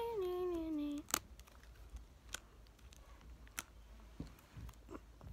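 A child humming one held note that slides down in pitch and stops about a second in, then a few sharp clicks and crackles of a small plastic toy package being bitten and torn at.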